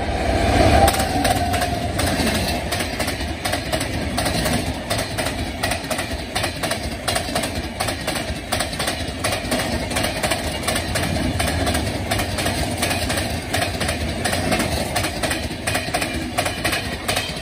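Express passenger train passing close at speed: the electric locomotive goes by about a second in, then the coaches rush past with a rapid, continuous clatter of wheels over the rail joints.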